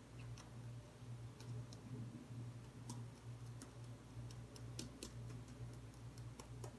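Light, irregular clicks and taps of a small metal tool picking at a raw egg's shell to open a hole, coming more often near the end, over a faint steady low hum.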